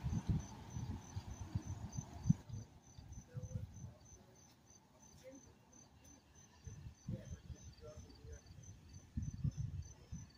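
An insect chirping in an even, high-pitched pulse several times a second, over gusts of wind rumbling on the microphone.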